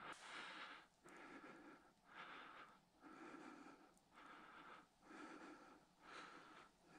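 Faint heavy breathing of a hiker from the effort of the climb: breaths in and out in an even rhythm, about one a second.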